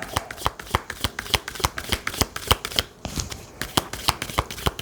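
A deck of oracle cards being shuffled by hand: a rapid, uneven run of card slaps and clicks, the shuffle a reader uses to make cards jump out of the deck.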